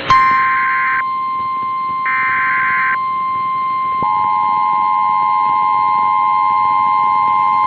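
Emergency Alert System alert tones. Two one-second bursts of SAME digital header data over a steady alert tone begin the alert, and about four seconds in the two-tone EAS attention signal joins in, a steady electronic buzz.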